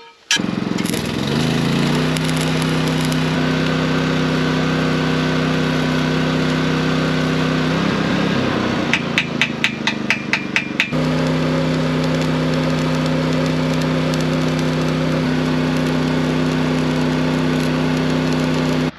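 Arc welder welding a steel pintle plate onto a trailer tongue: a loud, steady hum with crackling. It dies away about eight seconds in, a quick run of about eight sharp taps follows, and the welding starts again suddenly about eleven seconds in.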